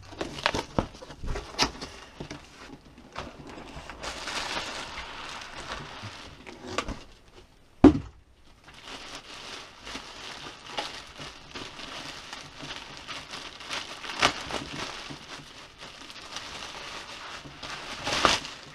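Unpacking noise: a cardboard box opened and a printer in a plastic bag and foam packing lifted out, with continuous plastic crinkling and rustling and scattered sharp clicks. One loud thump comes about eight seconds in.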